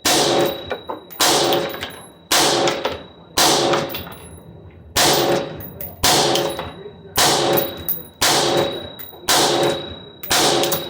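Semi-automatic AR-15 rifle with a 16-inch chrome-lined FN barrel firing 5.56 mm 55-grain FMJ at a steady pace, about one shot a second, ten shots in all. Each shot is followed by a metallic ringing tail.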